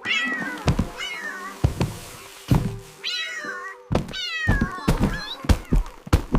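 Cat meows set to music as a dance track: a string of meows over a thumping beat, with a low hit about every second.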